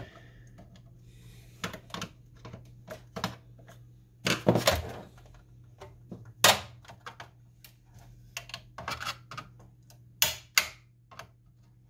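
Plastic and sheet-metal parts of an inkjet printer clicking, knocking and rattling as they are handled and pried during disassembly, with a louder scraping clatter about four seconds in and sharp knocks near six and ten seconds.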